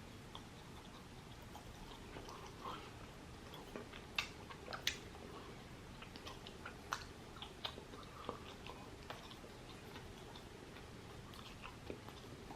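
Close chewing and eating sounds from a person eating chicken biryani: faint wet mouth clicks scattered throughout, with two sharper clicks about four and five seconds in.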